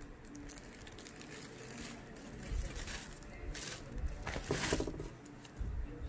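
Clothes rustling as they are handled and moved, in a few short bursts about two and a half seconds in, again around four and a half seconds in, and near the end.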